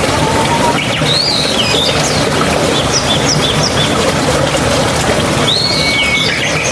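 Flowing water running steadily, with songbirds calling over it: a looping call about a second in, a quick run of short chirps around three seconds, and another looping call ending in a held whistle near the end.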